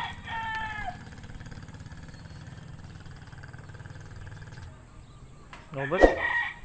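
A rooster finishes a crow in the first second, then a small engine runs steadily in the background for a few seconds. Near the end comes a loud knock with a short pitched cry.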